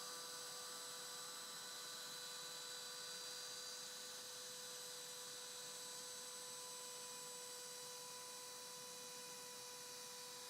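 Faint, steady high-pitched hum: several fixed tones over an even hiss, unchanging throughout.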